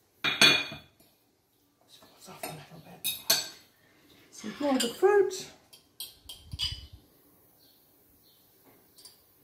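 Fork clinking and scraping on small ceramic serving plates, with a plate set down on a stone benchtop: a sharp clink about half a second in, more clatter over the next few seconds, and a dull thump near seven seconds.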